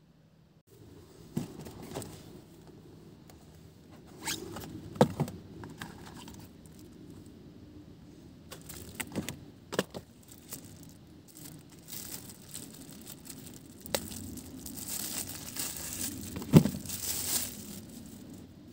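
Handling noise of a survival knife and its sheath on cardboard: scattered clicks and knocks, with rustling that grows louder in the last third.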